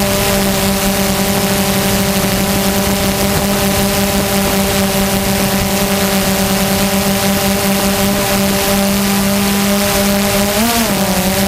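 DJI Phantom quadcopter's electric motors and propellers while hovering, a steady whine heard close up from the camera on the drone, over a rush of air noise. Near the end the pitch rises briefly and falls back.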